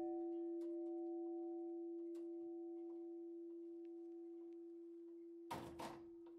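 Church bell, the 1881 Walser-cast St. Nicholas bell (nominal E-flat), ringing out after a strike: one low steady hum tone with fainter overtones above it, slowly fading. About five and a half seconds in comes a short rustling knock.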